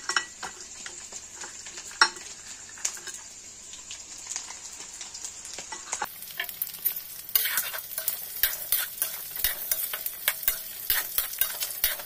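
Chicken pieces frying in hot oil, sizzling steadily while a spoon stirs and scrapes them in the pan. About six seconds in, the sizzle gets louder, with many quick clicks from stirring and spattering.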